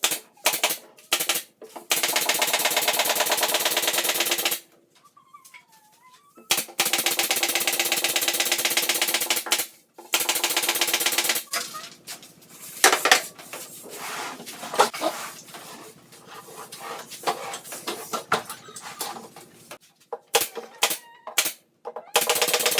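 A power tool running in bursts with a fast, even rattle: three long runs of a few seconds each, then shorter stop-start bursts.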